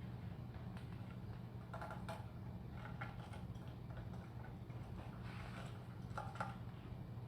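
Small metal hardware being handled and fitted by hand: scattered light clicks and clinks, several at a time, over a steady low hum.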